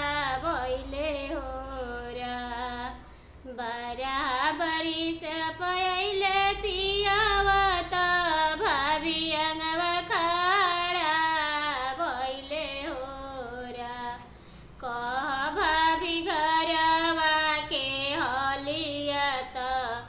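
A woman singing a Bhojpuri devotional bhajan to Shiva as a solo voice with no accompaniment, in long ornamented notes. The singing breaks off briefly twice.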